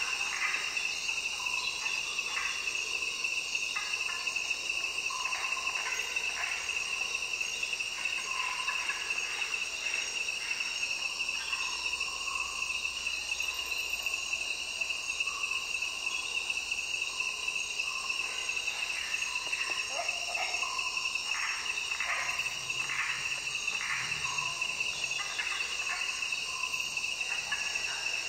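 Natural soundscape recording of a dense insect chorus, crickets trilling steadily at a high pitch, with short calls scattered through it.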